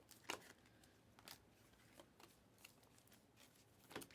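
Near silence with a few faint, short flicks and slides of trading cards being handled as a pack is gone through.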